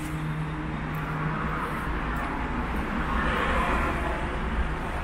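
A car's engine running at low speed as the car rolls slowly up over block paving, with a low steady hum that fades after about two seconds.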